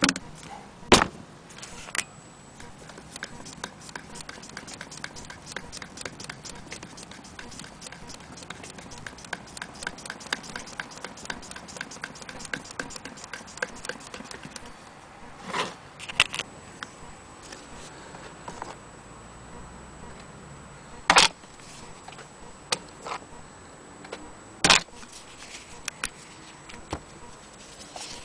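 Antique Willcox & Gibbs chain-stitch sewing machine stitching cloth, its mechanism ticking fast and evenly, several ticks a second, for about twelve seconds. The ticking stops, and a few loud single knocks follow.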